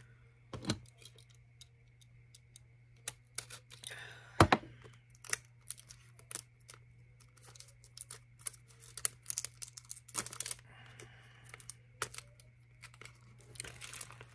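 Hands tearing and crinkling open the sealed plastic wrap and packaging of a lip stain, with scattered crackles and clicks and a sharp knock about four seconds in.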